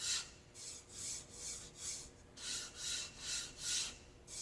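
Worn 120-grit sandpaper rubbed back and forth over a varnished wooden drawer panel, taking off the small burrs in the finish. The strokes come about two to three a second, with a short pause near the middle.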